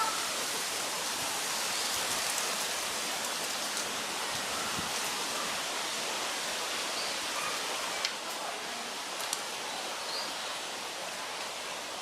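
Steady rushing outdoor background noise, an even hiss, with a couple of short sharp clicks about two-thirds of the way through.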